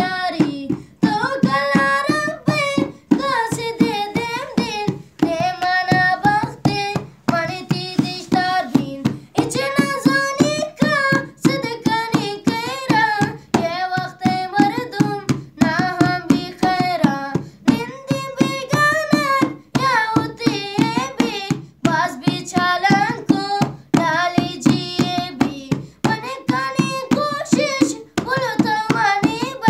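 A boy singing a Balochi song, his voice sliding and ornamenting the melody, over a quick, steady beat of hand percussion.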